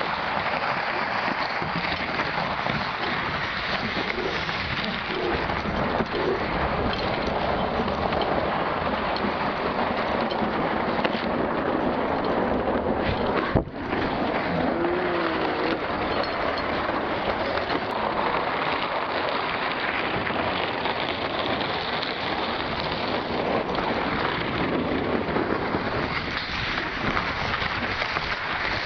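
Steady rough hiss of a plastic sled sliding over icy packed snow, mixed with wind buffeting the microphone of a camera moving alongside, with a brief drop about halfway through.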